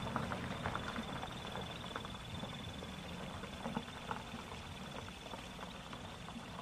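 Quiet roadside ambience: a low rumble of distant traffic under a steady high-pitched drone, with a few faint clicks.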